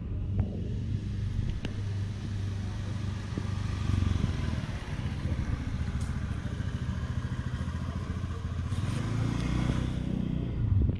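A motorcycle engine idling steadily, a low even hum, with a few faint clicks over it.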